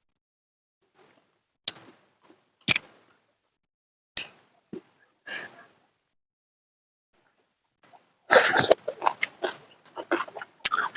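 Close-up eating sounds: a few separate mouth smacks and clicks, then from about eight seconds in a dense run of louder chewing and slurping.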